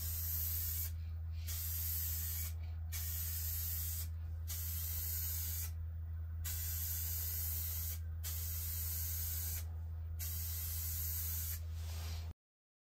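Aerosol spray can hissing in about seven bursts of a second or so each, with short pauses between, over the steady low hum of a wood lathe's motor. The sound cuts off abruptly near the end.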